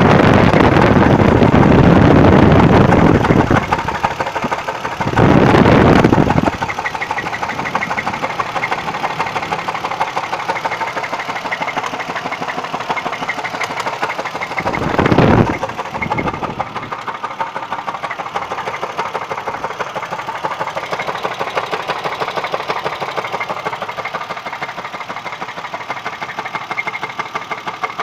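Running engine with a rapid, even knock keeping time with the engine, an unexplained knock the owner is trying to track down. The sound swells louder three times: at the start, about five seconds in, and briefly about fifteen seconds in.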